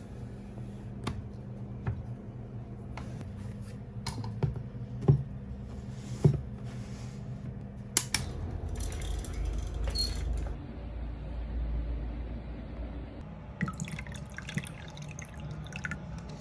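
Water poured from a glass pitcher into a drinking glass in two pours, with sharp clinks and knocks as glass and small objects are set down on a wooden desk.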